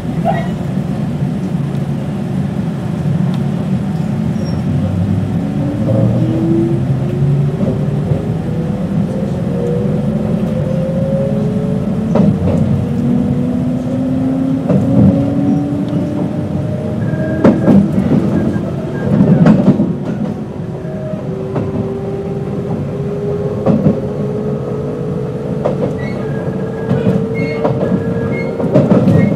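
JR West 221 series electric train with field-added excitation control running under power, its traction motor and gear whine climbing steadily in pitch as it gathers speed over a rumbling bed of running noise. There are occasional sharp clacks, a cluster of them near the end.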